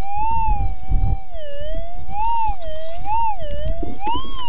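Minelab GPZ 7000 metal detector sounding a target signal through its wireless speaker: a warbling tone that rises and falls in pitch about once a second as the coil sweeps back and forth over a buried target, with a low rumble underneath.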